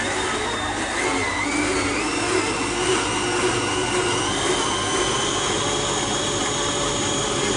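Electric stand mixer running, its motor whining steadily as the beater works butter, eggs and flour into a tart dough. The whine rises a little in pitch over the first couple of seconds, then holds steady.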